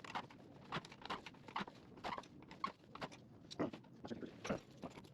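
Irregular short scrapes and squeaks, about two a second, as a rusted, seized baffle is twisted inside an old motorcycle exhaust pipe.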